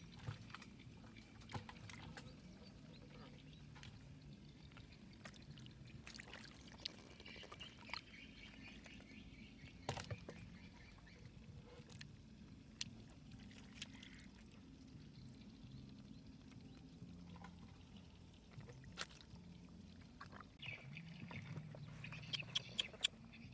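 Faint water sloshing and splashing, with scattered sharp knocks and clicks.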